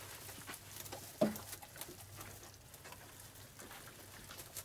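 A mother dog feeding from a metal bowl, with a patter of small, irregular clicks as she eats. About a second in there is one sharper, louder knock or squeak.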